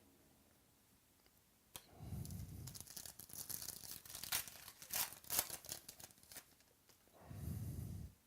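A trading-card pack wrapper being torn open and crinkled by hand: a click about two seconds in, then several seconds of crackling rustle with sharp crinkles, and another shorter rustle near the end.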